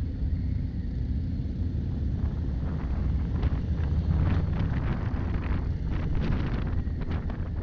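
Motorcycle engine running with a steady low rumble as the bike pulls away and rides through traffic, with wind buffeting the microphone in gusts from about two seconds in.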